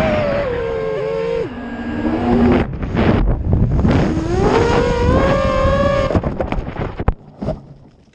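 FPV quadcopter's brushless motors whining loudly. The pitch falls, drops suddenly, then climbs and holds steady as the throttle comes back up. About six seconds in the motor sound breaks up into sputters and a few sharp knocks and dies away, as the quad crashes.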